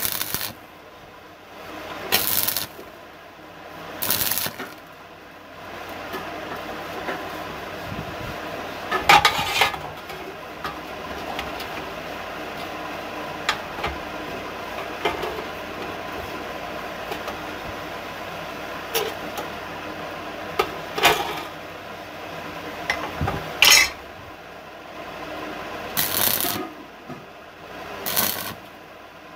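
Stick (arc) welding: a run of short arc bursts, each under a second, as the electrode is struck and tack welds are laid on steel, with light metal clinks in between.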